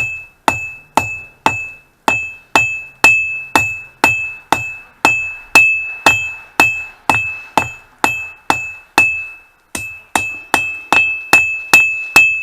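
Hand hammer striking hot mild steel on an anvil in a steady rhythm, about two blows a second. Each blow leaves a bright, high anvil ring. The blows pause briefly a little before the end.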